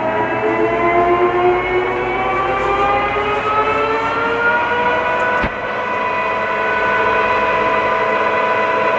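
1982 Kuraki hollow-spindle engine lathe running under power, its drive whine rising in pitch as the spindle speeds up, then holding steady from just past halfway. A single short click comes about the point where the pitch levels off.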